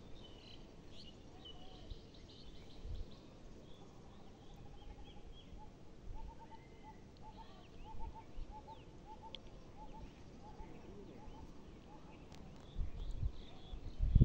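Open-air ambience with several birds chirping and calling, including a regular run of short repeated calls through the middle. A low rumble comes in near the end.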